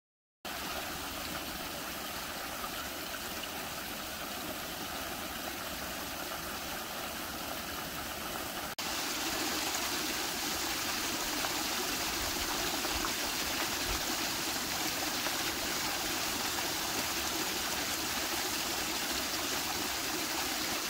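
Water pouring steadily from a metal flume onto a micro-hydro turbine box and spilling over its front edge into the creek below, an even rushing splash. It gets louder and brighter about nine seconds in.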